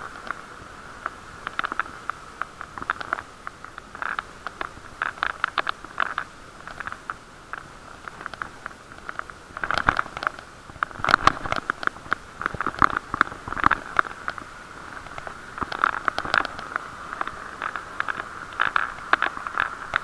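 Bicycle riding noise heard through an action camera's waterproof case: a steady muffled hum with irregular rattles and knocks as the bike goes over bumps, busiest in the middle and toward the end.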